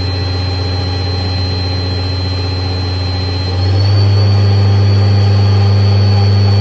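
Haas ST-10Y CNC lathe spindle running, a steady high electric whine over a low hum. About three and a half seconds in, the whine steps up in pitch and the sound grows louder as the spindle is brought up to a higher speed.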